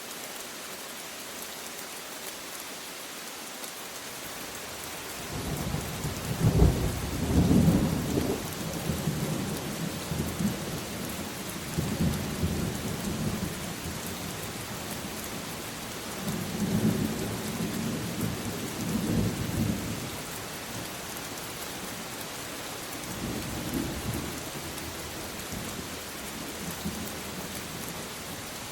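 Steady rain hissing, with a long rolling rumble of thunder coming in about five seconds in. The thunder swells several times, loudest early on and again a little past the middle, then fades to a weaker roll near the end.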